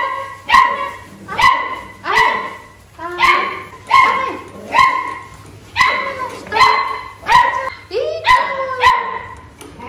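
A six-week-old Golden Retriever × English Cocker Spaniel mix puppy barking over and over in short, high yaps, a little more than one a second.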